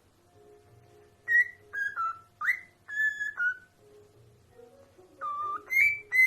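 Pet parrot whistling a string of short notes, some dropping in pitch and one sweeping up. The notes come in two bursts, the second starting with a longer, lower note.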